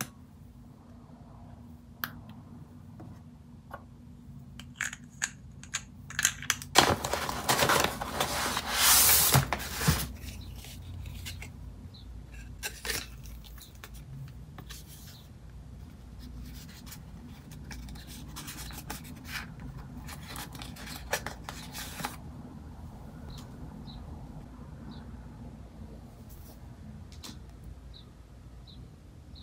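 Hands handling packaging: small clicks and taps of plastic bottles and caps, with a loud burst of paper rustling and crinkling from about seven to ten seconds in, then quieter rustling of paper sample cards.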